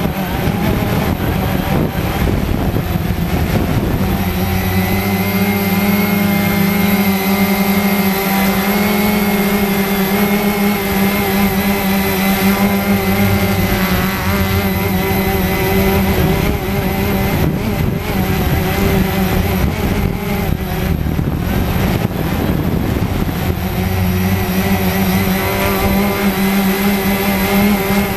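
Cheerson CX-20 quadcopter's four brushless motors and propellers buzzing, heard close up from the drone itself. The pitch holds steady through the middle stretch and wavers near the start and end as the throttle changes.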